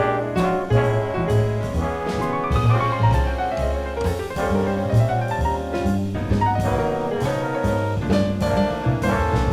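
Big band jazz: a double bass steps through a walking line under drums and piano, with brass and saxophone lines above. About two seconds in, a run of notes climbs and then falls back.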